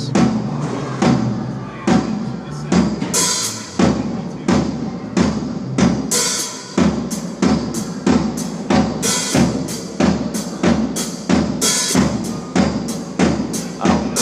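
Music with a steady drum-kit beat of kick and snare under pitched instruments.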